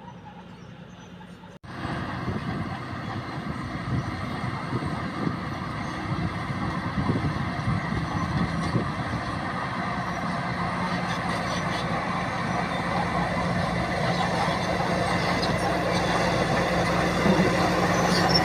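Old bulldozer's diesel engine running steadily, cutting in abruptly about a second and a half in and growing slowly louder.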